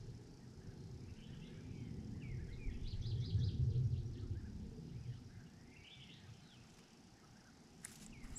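Birds chirping in short arched calls, with a quick run of high cheeps about three seconds in, over a low rumble of wind. A sharp click sounds near the end.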